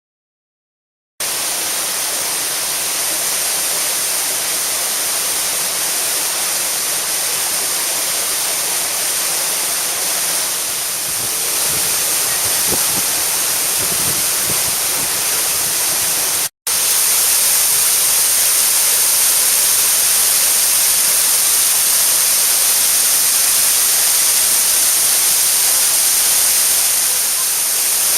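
Waterfall: a loud, steady rush of falling water, starting about a second in and cutting out for an instant partway through.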